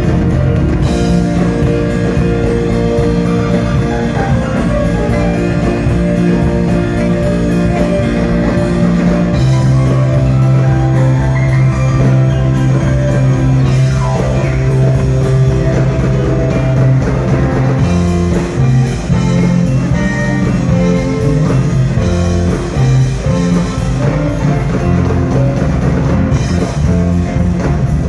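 Live rock band playing: electric guitars, bass guitar, drum kit and keyboards together, with a long held low bass note through the middle.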